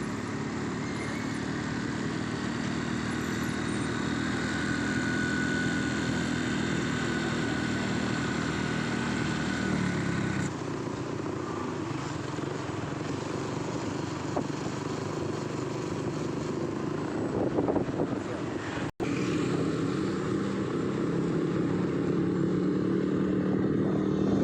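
Motorcycle engine running steadily amid road traffic noise. The sound changes abruptly about ten seconds in and briefly cuts out about nineteen seconds in.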